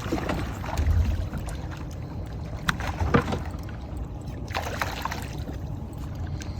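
Water splashing and lapping at the side of a fishing boat, over a steady low wind rumble on the microphone, with two sharp splashes or knocks about three seconds in.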